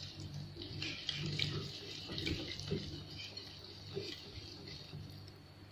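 Wire whisk stirring thick, wet flour batter in a glass bowl: faint, irregular wet swishing with a few light clicks of the whisk against the glass, over a faint steady hum.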